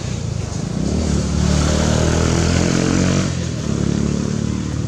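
A vehicle engine running steadily, growing louder from about a second in and easing off a little after about three seconds, as if passing close by.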